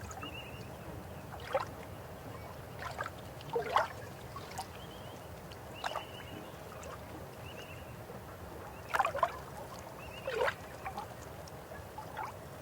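A river flowing steadily, with short gurgles and splashes of water breaking through every second or two, loudest about three and a half seconds in and around nine to ten and a half seconds in. A faint, high chirping repeats in the background.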